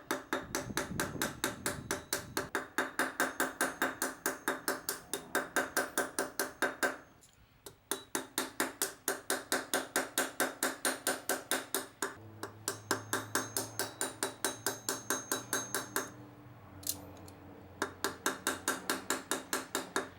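Hammer peening over the ends of steel pins in a steel folding fork's handles: quick, even, ringing metal-on-metal taps at about four a second, pausing twice.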